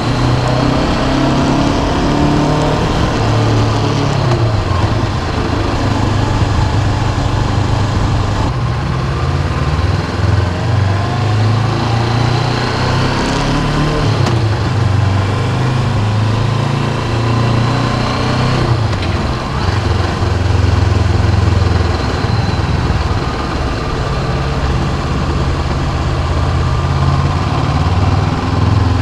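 Honda CB500X's parallel-twin engine running under way, its revs rising and falling as the rider opens and closes the throttle.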